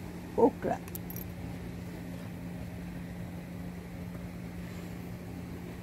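Faint clicks of scissors snipping an okra stem about a second in, over a steady low mechanical hum. A short voice sound comes about half a second in.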